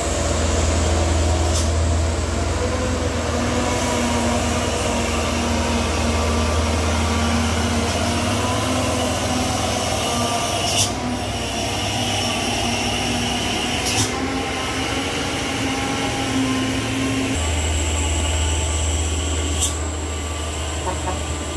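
Diesel truck engines droning under load as heavily loaded trucks climb a steep hill, over a steady hiss of heavy rain. The deep engine drone eases off in the middle and comes back strongly about three-quarters through, with a few short sharp clicks along the way.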